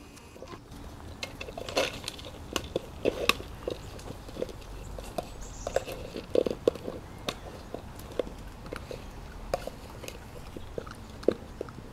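Young puppies biting and nosing an empty plastic container, giving irregular clicks, taps and knocks of thin plastic.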